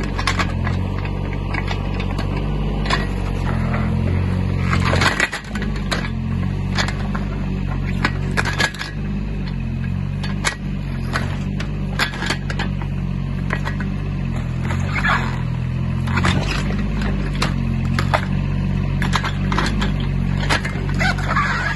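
Yanmar B14 mini excavator's diesel engine running steadily under hydraulic load, its pitch shifting a little as the root-ripper tooth works. Over it come many sharp knocks and cracks as the tooth tears through birch roots and soil.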